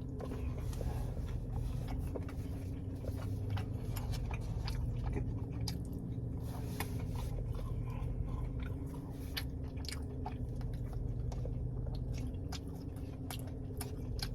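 Close-miked chewing and biting of crunchy breaded popcorn chicken, a run of small crisp crunches over a steady low hum.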